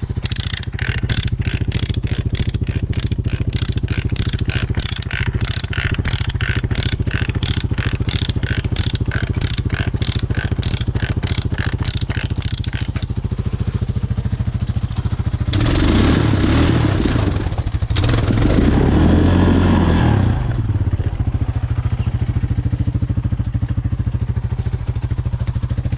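Four-wheeler (ATV) engine running steadily, with a fast, even clacking of about three a second over the first half that stops about halfway through. Near the middle the engine revs up twice, then settles back to a steady run.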